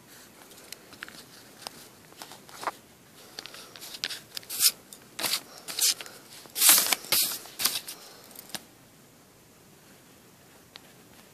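A pencil scratching on lined notebook paper in short strokes, with a run of louder scratchy strokes through the middle few seconds.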